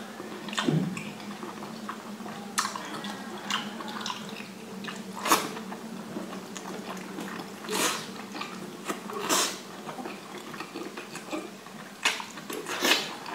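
Close-up mouth sounds of eating cooked octopus tentacles in a spicy sauce: wet biting, sucking and chewing, with sharp smacks every second or two. A faint steady hum lies underneath.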